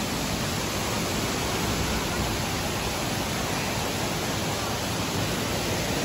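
Waterfall's water rushing: a steady, even hiss with no breaks.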